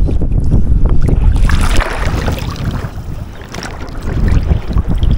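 Strong wind buffeting the microphone, a low gusting rumble, with a brief rushing hiss about one and a half seconds in.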